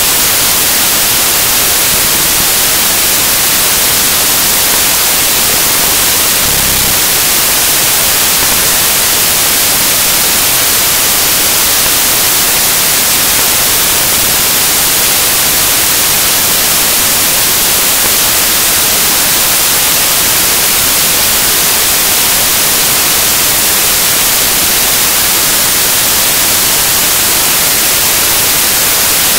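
Loud, steady white-noise static hiss, even and unchanging, strongest in the high end, with no music or voice in it.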